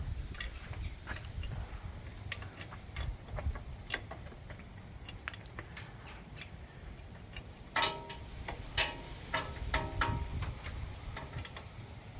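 Scattered light metallic clicks of hand tools and bolts being worked against a motorcycle crash bar, with a few louder ringing metal clinks about eight to ten seconds in.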